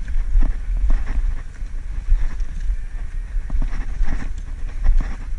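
Irregular footsteps and rustling through bankside grass and brush over a steady low rumble.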